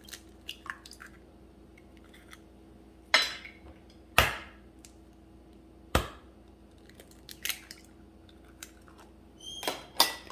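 Eggs being cracked open: a few sharp knocks of shell on a hard edge, a second or more apart, with lighter clicks of shell handling between. A faint steady hum runs underneath.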